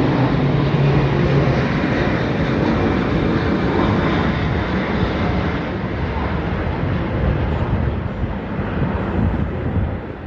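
Loud, steady rushing noise of a passing train mixed with a low-flying jet airliner overhead, with a low hum in the first second or two, easing slightly near the end.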